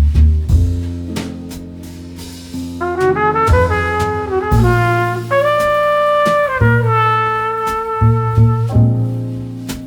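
Background music: a jazzy brass tune with trumpet-like held notes over a walking bass and drums.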